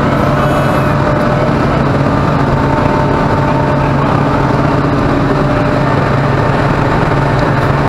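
Loud, steady machinery drone on a ferry's vehicle deck: a dense rumble with a strong low hum and a few steady tones above it, unchanging until it ends abruptly.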